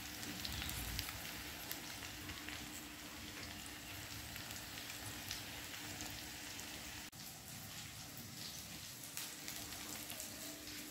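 Onions and brinjal frying in oil in a metal kadhai: a quiet, steady sizzle with fine crackling.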